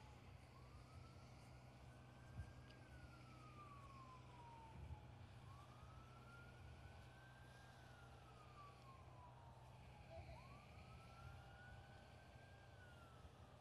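Faint emergency-vehicle siren on a slow wail, rising and falling three times about five seconds apart, over a steady low hum.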